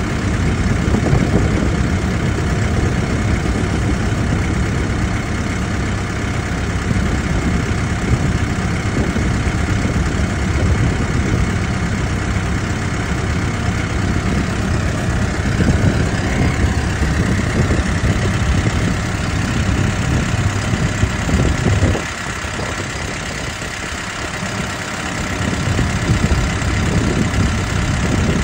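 Cummins diesel engine of a JLG telehandler idling steadily. It drops in level about three-quarters of the way through, then picks back up.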